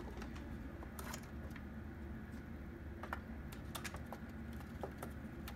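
Scattered light taps and clicks of pigeons pecking and scuffling on a stone window ledge over a low steady hum.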